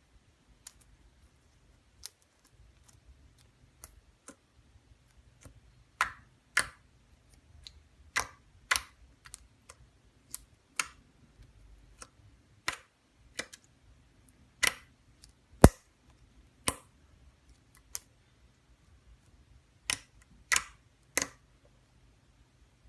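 Sticky slime being pressed and squished by hand, making irregular sharp clicks and pops, faint at first and louder from about six seconds in.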